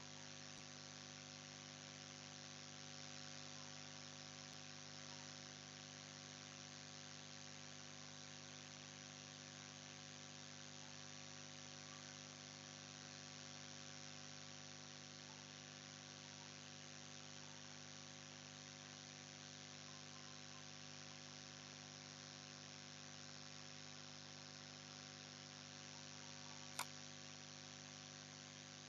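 Steady electrical hum and hiss of the recording's noise floor, holding a set of fixed tones. A single sharp click near the end.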